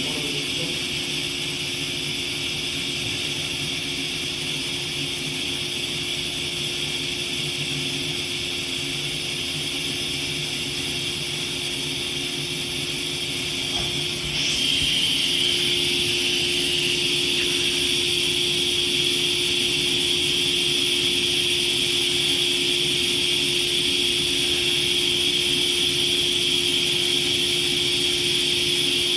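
Stationary JNR 115 series electric train idling at the platform, its underfloor equipment giving a steady hum with a held mid tone and a high whine. The sound steps up in level and brightens about halfway through.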